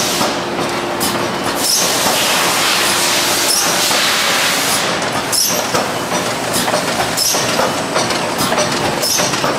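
Bosch packaging machine running: a loud, steady mechanical clatter with a faint steady hum and occasional short hisses.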